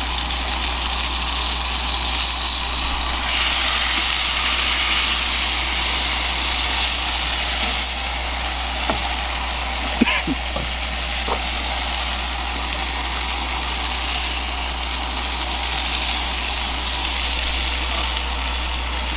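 Burger patties sizzling in a cast-iron skillet on a portable propane camp stove, over a steady low rumble; the sizzle grows brighter about three seconds in, with a few light clicks around the middle.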